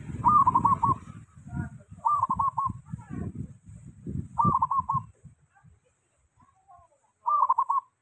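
Caged zebra dove (perkutut) singing: four short trilled coo phrases, each under a second long, spaced about two seconds apart. A low rumbling runs under the first three phrases.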